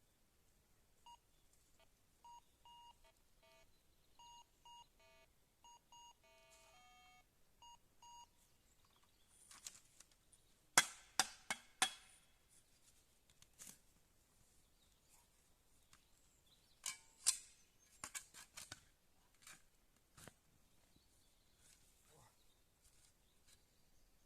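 Metal detector giving a string of short beeps at one steady pitch, with a quick run of several different tones near the end of the beeping: a signal over buried metal. After that come two clusters of sharp knocks from digging at the spot, the loudest about halfway through.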